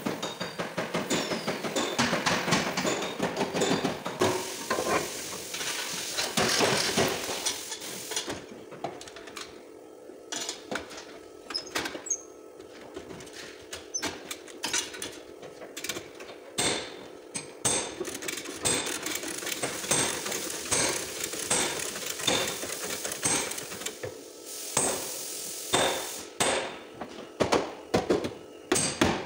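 Metal knocking and tapping on a car's damaged rear body panel as it is straightened, with a fast run of strikes in the first few seconds and then scattered single knocks.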